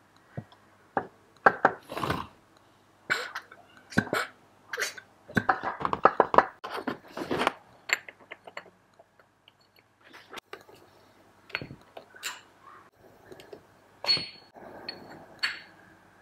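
Metal parts and hand tools clinking, knocking and scraping on a stainless steel workbench as an IAME X30 kart engine is reassembled by hand: a quick, irregular run of sharp clicks and clatters.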